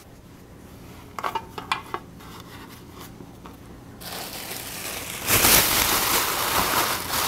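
A few light clicks and knocks from the metal loaf pan as the dough is settled into it, then a thin plastic grocery bag crinkling loudly as it is pulled over the pan, starting about four seconds in and growing louder a second later.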